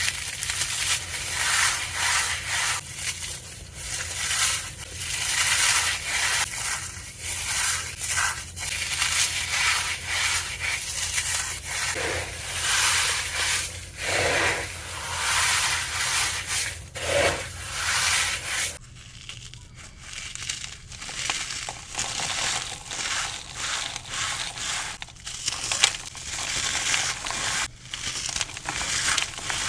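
Dense, rapid, irregular crunching of a crumbly, powdery material being crushed, with a brief lull about two-thirds of the way in.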